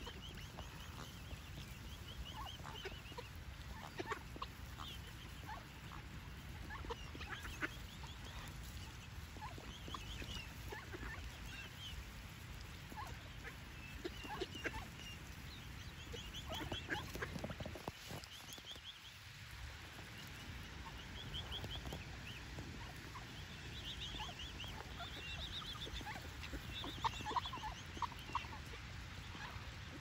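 Mallard ducks and mute swans with a cygnet feeding at close range: soft, quick strings of short high calls come and go, mixed with brief clicks of bills pecking, over a steady low rumble.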